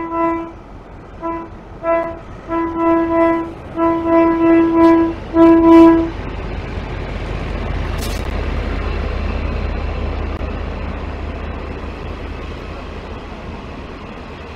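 A diesel locomotive's horn sounds a quick series of toots, some short and some longer, on one pitch, the last blast the loudest. Then the steady rumble of the passenger train rolling past, slowly fading, with a single sharp click partway through.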